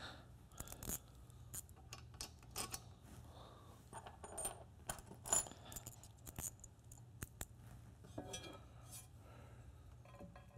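Small steel bolts and washers clinking faintly as they are picked from a loose pile and handled, with scattered light clicks and taps of metal hardware against the press's side plate.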